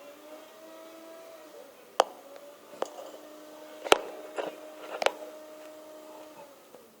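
Five sharp clicks or taps, the loudest about four seconds in, over a faint steady hum that stops about six seconds in.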